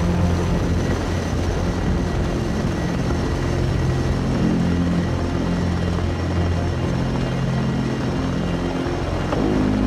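Sikorsky S-64 Air-Crane heavy-lift helicopter hovering: a steady, even drone of rotor and turbines with several low humming tones.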